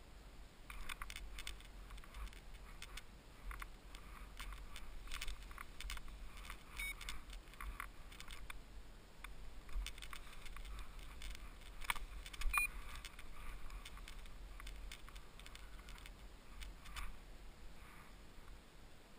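Paragliding harness and gear being handled: irregular light metallic clinks and rustles, with a sharper clink about twelve seconds in.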